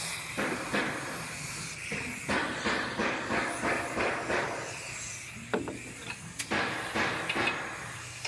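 Compressed-air applicator gun spraying protective coating onto a car's underbody seams: air hissing in many short bursts as the trigger is pulled and released, with a few sharp clicks in between.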